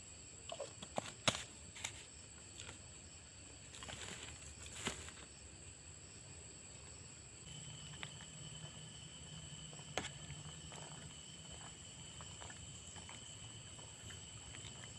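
Faint steady high-pitched insect drone, with scattered sharp clicks and knocks in the first few seconds and once more near the middle; a low steady hum joins about halfway through.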